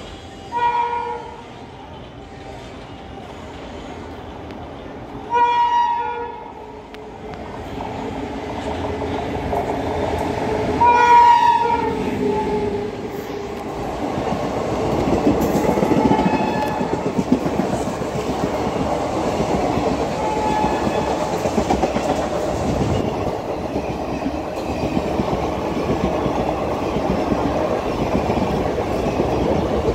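Indian Railways express train approaching at speed, its locomotive horn sounding three times about five seconds apart. Then the coaches rush past with a steady, loud rail clatter.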